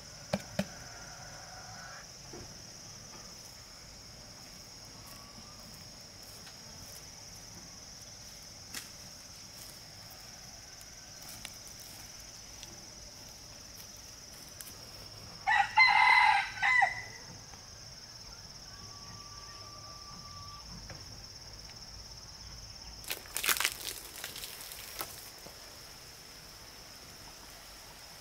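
A rooster crows once, about halfway through, over a steady high-pitched drone of insects. A few quick knocks come near the end.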